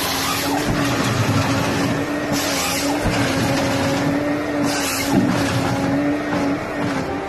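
A motor running at a steady pitch under a strong, even hiss. The hiss grows brighter twice, for about half a second each time.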